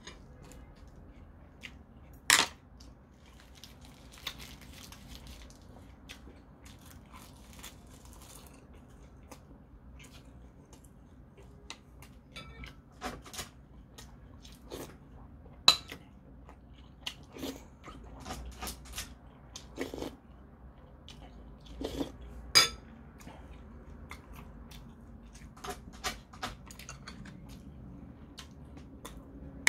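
A man chewing mouthfuls of rice and side dishes, with metal spoon and chopsticks clicking against the bowls now and then. A few of the clicks are sharp and loud.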